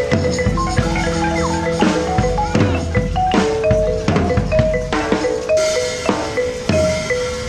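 Marimba played with mallets, a quick melodic line of ringing wooden-bar notes, over a drum beat with sharp, frequent hits.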